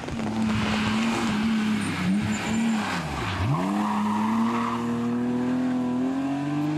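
BMW M3 E36 rally car's straight-six engine at high revs, its note dipping sharply about halfway through and then climbing steadily under acceleration, with tyres skidding as the car slides through a bend.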